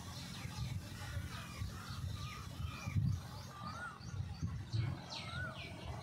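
Small birds chirping and calling: many short notes, several sliding down in pitch, and a couple of warbling whistles. Irregular dull low bumps sound underneath, the strongest about halfway through.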